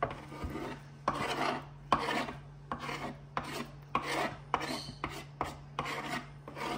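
Metal spoon scraping diced avocado across a bamboo cutting board in repeated short strokes, about one to two a second.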